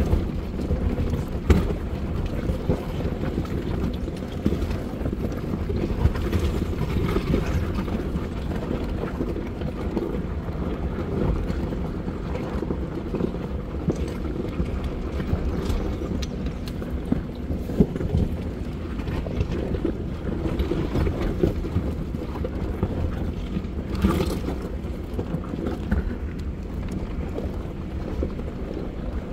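Jeep rolling slowly down a rocky dirt trail: a steady low engine-and-tyre rumble, with a few sharp knocks and rattles as it goes over rocks.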